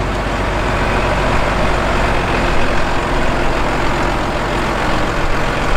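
International Harvester 5388 tractor's diesel engine running steadily as the tractor drives past.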